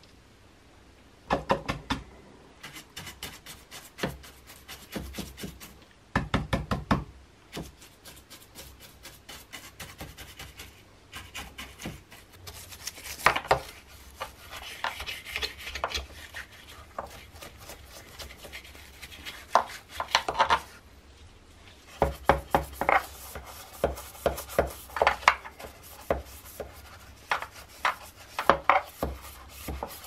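A bristle paintbrush scrubbing the wet inside of a coffee machine's black plastic housing: bursts of fast scraping strokes with sharp clicks as the brush knocks against the plastic, stopping and starting in short pauses.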